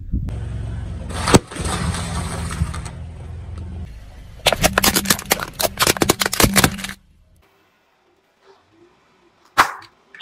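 Car tyre rolling slowly over objects with the engine running low: a sharp crack a little over a second in, then a quick run of cracking and crunching from about four and a half to seven seconds as the tyre flattens a cup.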